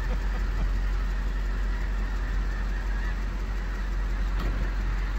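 A large flock of snow geese calling faintly in flight, over a steady low rumble.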